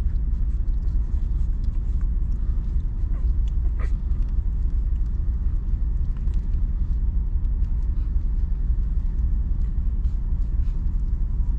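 A steady low rumble throughout, with scattered faint small clicks and smacks of a mother dog licking her nursing puppies and the puppies suckling.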